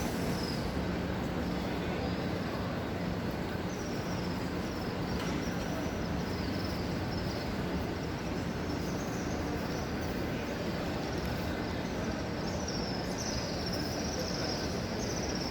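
Steady murmur of a large crowd of pilgrims moving and praying, many voices and footsteps blended into one even noise, with a low hum and short high chirps repeating above it, stronger near the end.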